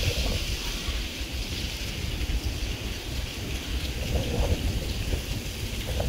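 Gusty wind buffeting the phone's microphone: an uneven low rumble under a steady hiss.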